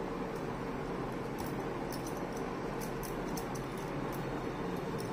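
Steady background hum of room noise, with a constant mid-pitched tone and a few faint soft ticks scattered through it.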